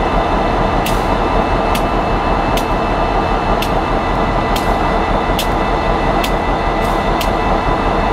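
Standing six-axle EMD diesel locomotive's engine running steadily, with a short sharp tick about once a second.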